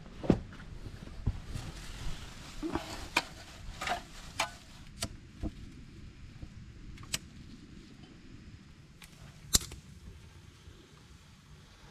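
Small tinder fire crackling in a brick smoker's firebox: scattered sharp pops and snaps at irregular intervals, the sharpest about ten seconds in, over a low steady background.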